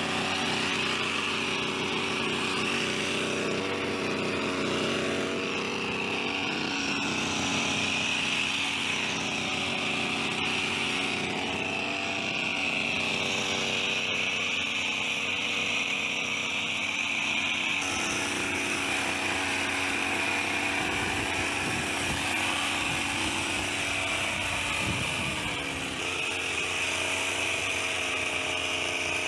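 Petrol hedge trimmer's small engine running steadily at high speed with a buzzing drone. Near the end it briefly slows, its pitch sliding down, then runs on.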